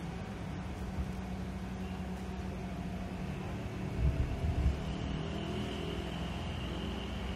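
Steady low hum of motor-vehicle engines and traffic, with a faint high whine over it. A stronger low rumble swells briefly about four seconds in.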